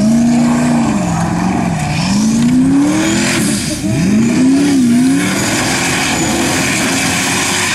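Formula Offroad buggy engine revving hard, its pitch climbing and dropping about four times as the paddle tyres dig through sand.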